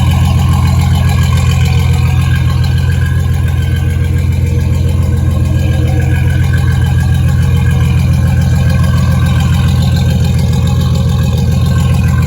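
2003 Chevrolet Silverado engine idling steadily on a newly replaced fuel pump: it keeps running evenly.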